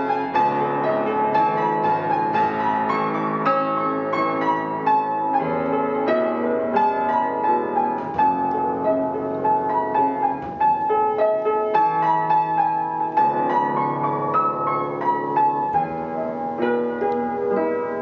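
Piano playing a ballad, a melody over chords, with notes struck several times a second.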